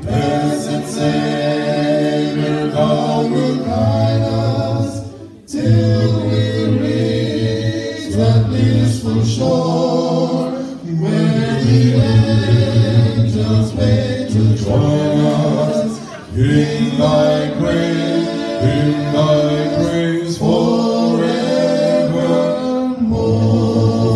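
Male vocal quartet singing a cappella in close harmony into handheld microphones through a PA. The phrases break off briefly about five seconds in and again around sixteen seconds.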